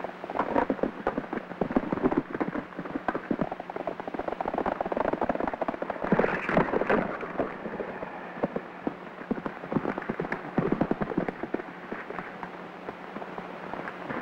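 Rustling and snapping of dry brush during a scuffle, a dense run of irregular crackles that thickens about halfway through, over the steady low hum and surface crackle of an old film soundtrack.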